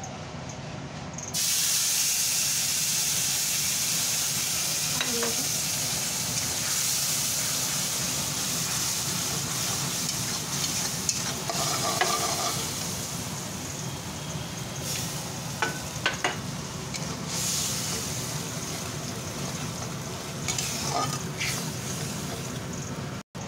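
Food frying in hot oil in a pan: a loud, steady sizzle that starts suddenly about a second in, with a few sharp clicks of a utensil stirring in the pan.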